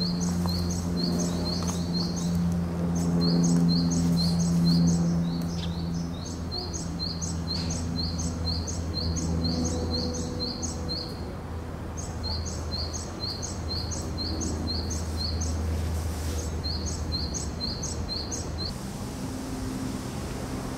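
A small bird chirping in quick, even runs of about four short, high chirps a second, with brief pauses between runs. A steady low hum lies underneath. The chirping stops near the end.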